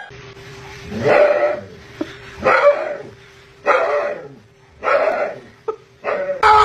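Husky on a grooming table making a run of drawn-out, yelping barks in protest, one every second or so, over a steady hum.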